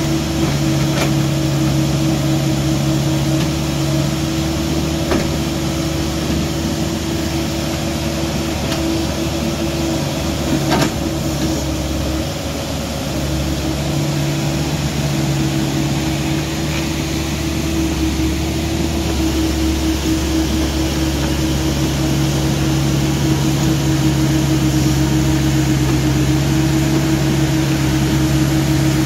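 Excavator's diesel engine running steadily during pond digging, its even note easing for several seconds midway and then coming back. A few faint knocks sound in the first half.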